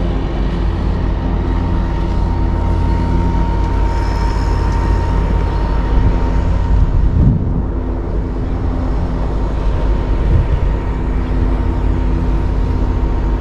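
Steady engine drone with a constant high hum running through it.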